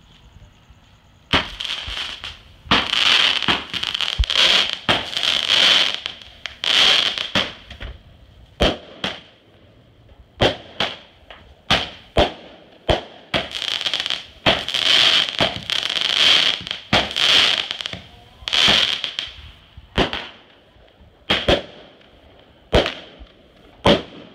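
Multi-shot firework cake firing a long volley: an irregular string of sharp bangs, some followed by a second or two of dense crackling. It starts about a second and a half in.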